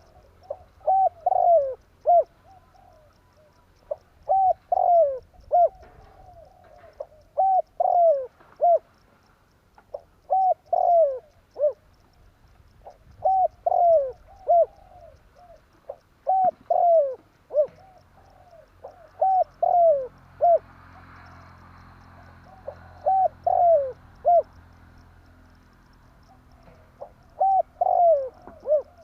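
Spotted dove cooing: repeated phrases of several coos with falling ends, about one phrase every two to three seconds, with a longer pause about two-thirds of the way through.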